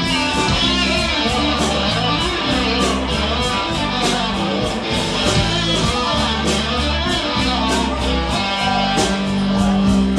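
Live rock band playing an instrumental passage: electric guitar to the fore over bass guitar, with a steady cymbal beat from the drums.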